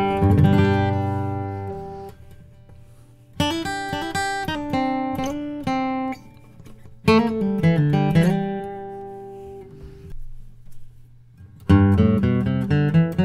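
Santa Cruz D/PW pre-war dreadnought acoustic guitar, with rosewood back and sides and an Adirondack spruce top, being played in short phrases of picked and strummed notes. Each phrase is left to ring and fade away before the next starts, about three and a half, seven and eleven and a half seconds in.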